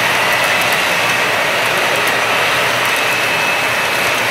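Model freight cars rolling past close by: a steady rush of metal wheels running on the track, with faint scattered clicks and a thin high tone underneath.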